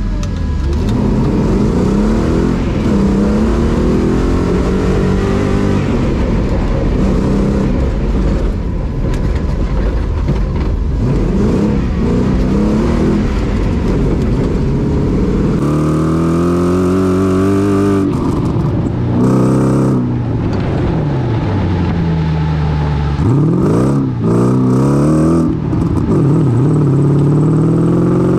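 Off-road 4x4's engine revving hard as it accelerates over the course, its pitch climbing and falling again and again with throttle and gear changes, heard from inside the cabin. About halfway through, the deep cabin rumble drops away and the engine is heard from outside.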